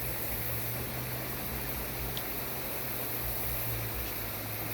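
Steady outdoor background noise with a constant low hum and no distinct events.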